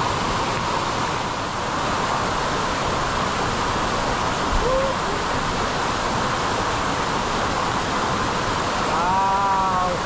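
Waterfall pouring, a steady rushing noise of falling water. A person's voice is heard briefly near the end.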